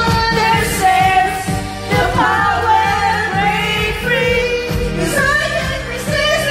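Karaoke: an amateur voice sings into a microphone over a pop karaoke backing track with a steady beat, both played through the room's speakers.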